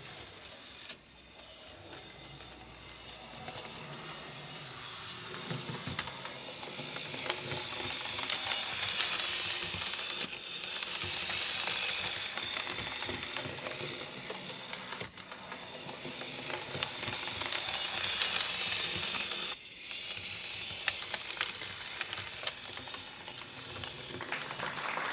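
OO gauge model tank locomotive running on track, its electric motor whirring with clicking from the wheels on the rails, growing louder over the first several seconds and then holding steady. The sound drops away sharply for an instant about ten and again about twenty seconds in.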